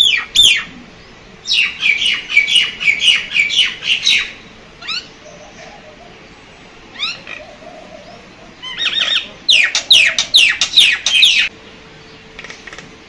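Birds calling in bursts of rapid, high, sharply falling chirps. The two longest runs last about two to three seconds each, with a few single chirps and quiet gaps between.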